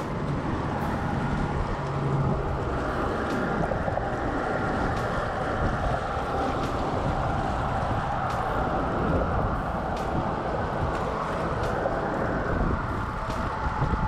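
Wind buffeting the microphone and small waves lapping on a rocky shore, over a steady low rumble.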